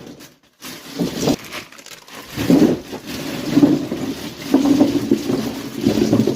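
Ice being poured into a styrofoam cooler, rattling and crunching in several irregular bursts with short pauses between.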